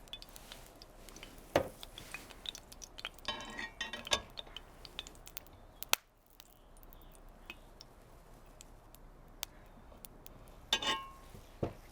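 Kitchen utensils and dishes clinking and knocking against a skillet, in scattered taps: a louder knock about a second and a half in, a run of clinks a few seconds in, a sharp tap midway and a ringing clink near the end.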